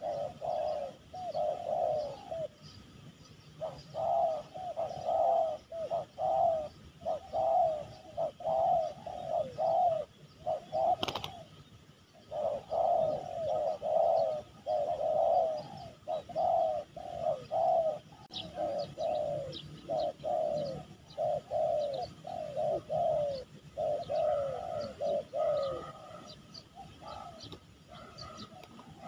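Spotted doves cooing in long runs of repeated rounded phrases, with a single sharp click about eleven seconds in and faint small-bird chirps in the second half.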